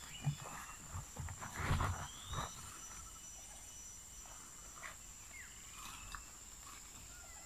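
Tropical forest ambience: a steady high-pitched insect drone with a few short rising and falling bird calls. In the first couple of seconds there is a cluster of rustles and knocks from someone pushing through undergrowth, the loudest sounds here.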